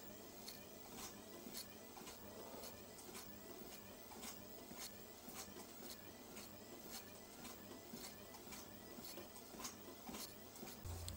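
Faint regular ticking, about two ticks a second, over low room noise; a low rumble starts just before the end.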